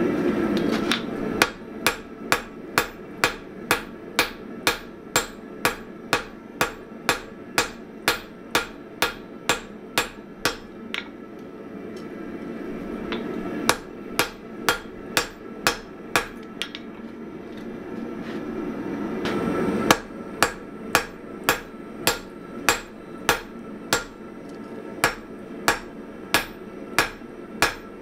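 Hand hammer blows on a glowing damascus steel billet held with tongs on an anvil, flattening it, about two ringing strikes a second. There are three runs of blows, with two short pauses in which a low rushing noise swells.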